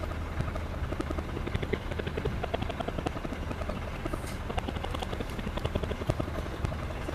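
A steady engine drone with a rapid rhythmic pulsing.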